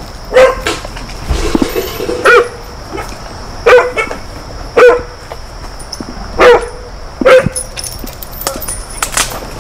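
A dog barking repeatedly, single sharp barks every second or two.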